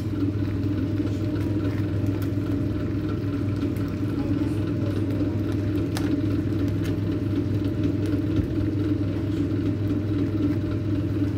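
A steady low hum in the kitchen, with a few faint clicks as a slotted spatula works among the crabs in the pot.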